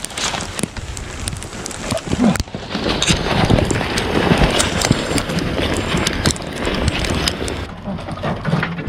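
Footsteps crunching through snow and brushing past branches, with the trap chain rattling, while a trapped beaver is carried.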